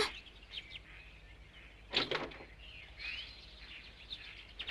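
Faint birdsong ambience, scattered light chirps over a low hush, with a brief louder sound about two seconds in.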